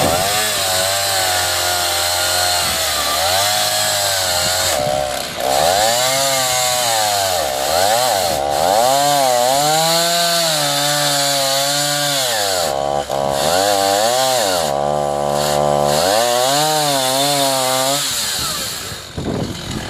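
Chainsaw in an Alaskan chainsaw mill, ripping a log lengthwise under load, its engine note rising and falling as the cut loads and frees the chain. The engine note falls away near the end as the cut is finished.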